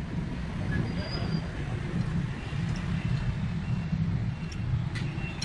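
Steady low engine rumble with faint voices in the background.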